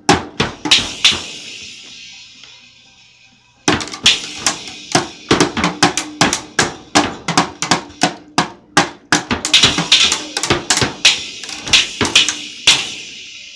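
Child's toy drum set with small drums and a cymbal being hit with drumsticks: a few strikes at the start and a ring that fades, then from about four seconds in a fast, uneven flurry of hits, several a second, with cymbal wash, stopping near the end.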